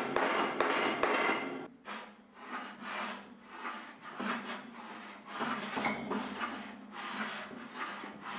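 A few sharp hammer taps on a wooden rail in the first second, then short hand-sanding strokes, about two a second, over a brass screw head set flush in a teak armrest.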